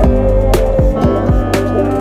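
Background music with held instrument notes and a steady beat, a sharp hit about once a second.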